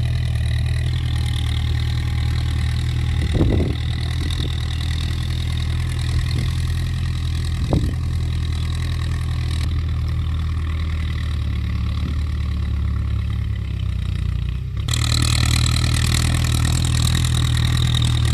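Ford 6610 tractor's four-cylinder diesel engine running steadily as it pulls a seven-disc plough, with a couple of short knocks; about fifteen seconds in the sound turns louder and brighter.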